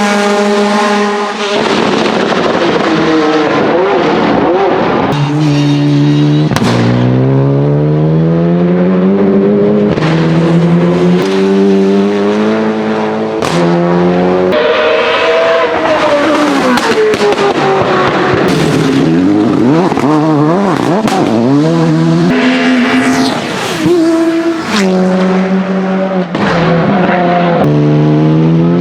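Race car engine revving hard, climbing in pitch through several gears with a drop at each shift. Sharp exhaust pops and bangs come at several of the shifts and lifts.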